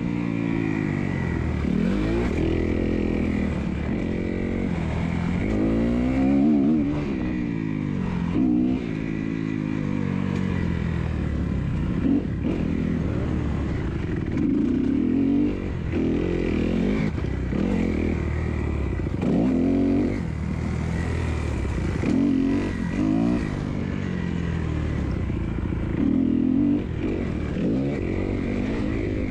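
Kawasaki 250F motocross bike's single-cylinder four-stroke engine, heard from on board. It revs up and drops back again and again as the rider opens the throttle, shifts and rolls off around the track, with a few short knocks and clatter.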